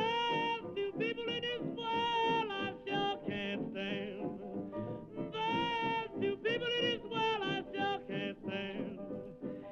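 Background music with a singing voice, held notes in short phrases over instrumental accompaniment.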